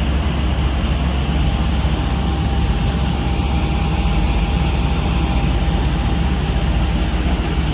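Steady, loud low rumble of a heavy engine running, with a faint steady whine partway through.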